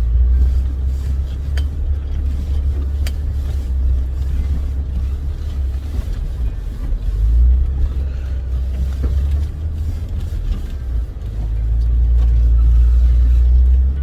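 Jeep Wrangler driving an off-road trail: a steady low rumble of engine and tyres that swells louder twice, the second time held for the last few seconds, with a couple of sharp clicks about a second and a half and three seconds in.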